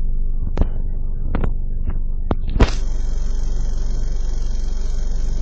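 2009 Ford Focus 2.0L four-cylinder engine idling with a steady low rumble, showing the rough idle its owner is recording. A few sharp clicks come in the first half, and about halfway a steady hiss starts and keeps going.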